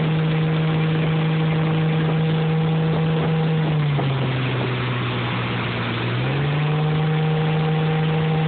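Speedboat engine running steadily over the rush of its wake and wind. About four seconds in, the engine note drops as the throttle eases off, then it climbs back up to its earlier pitch a couple of seconds later.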